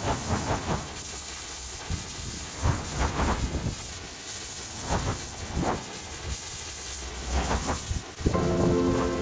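Pressure washer jet spraying moss off a roof: a steady hiss of water with uneven louder surges. Music comes in near the end.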